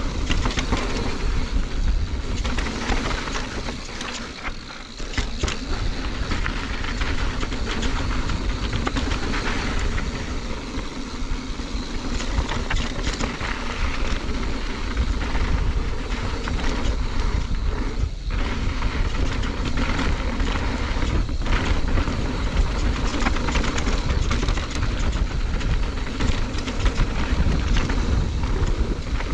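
Mountain bike descending a rough dirt trail at speed: steady wind rush buffeting the camera microphone and knobby tyres rolling on dirt, with scattered clattering knocks as the bike goes over bumps.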